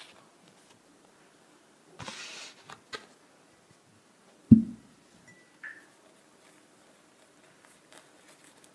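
Paper tea bag being unfolded and handled close to the microphone, with a short papery rustle about two seconds in and a few small clicks. About halfway through there is a single low thump, the loudest sound.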